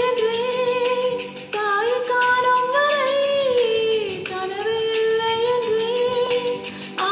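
A woman singing a Tamil film melody in long held notes over a karaoke backing track with a steady beat, with a short break in the voice about a second and a half in.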